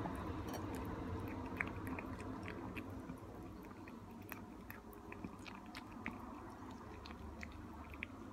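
Ginger cat eating wet cat food from a ceramic bowl: quick, irregular wet chewing and smacking clicks, over a low steady hum.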